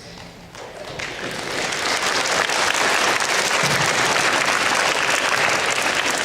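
Audience of schoolchildren and staff applauding, a dense patter of many hands clapping that builds over the first two seconds and then holds steady.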